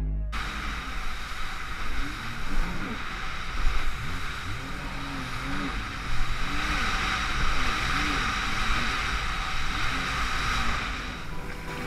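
Jet ski engine revving up and down as the ski rides over chop, under a steady rush of wind and water spray.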